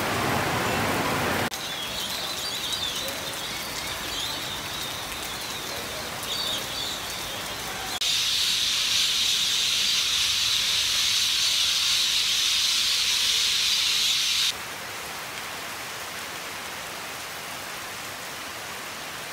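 Heavy rain in a run of short recordings: a loud downpour for the first second and a half, then softer steady rain with scattered bird chirps. About eight seconds in, a much louder, steady high-pitched hiss takes over for some six seconds, and then it drops back to steady rain.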